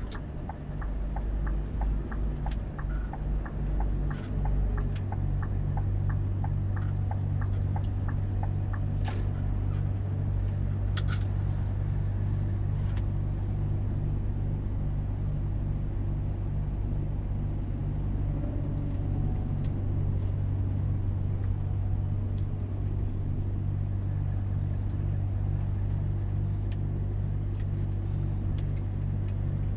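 Scania V8 truck engine running steadily while driving, a low even drone. For the first several seconds a regular ticking, about two ticks a second, runs over it.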